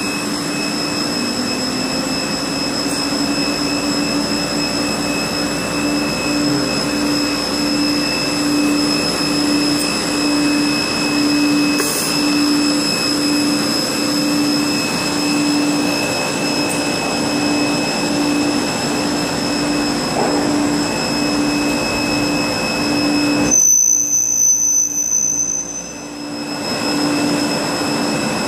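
Rüsch automatic sawing-drilling line running: a steady machine drone with high whining tones and a low hum that rises in pitch over the first few seconds, then pulses evenly. About 23 seconds in, the sound changes abruptly to a quieter drone with a different high whine.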